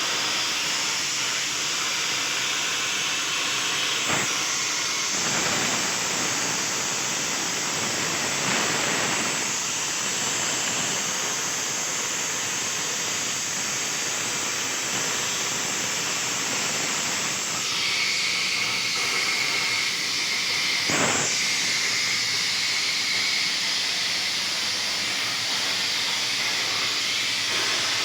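CNC plasma cutter torch cutting 1.5 mm steel sheet: a steady, a-bit-loud hiss of the plasma arc and its air. A faint whistling tone joins it about two-thirds of the way through, and there are brief clicks twice.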